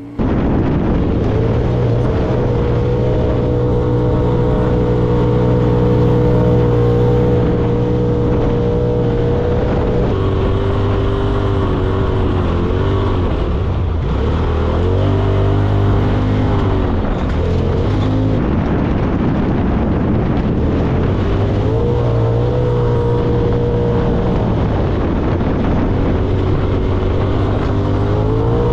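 Polaris RZR Pro XP 4 side-by-side's engine running hard while driving over sand dunes, its pitch holding steady with several brief drops and climbs as the throttle eases and comes back on.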